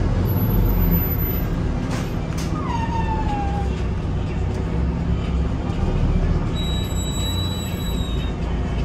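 Mercedes-Benz Citaro G2 city bus engine running steadily. There are two clicks about two seconds in, a short falling whine around three seconds, and a high steady tone for a couple of seconds near the end.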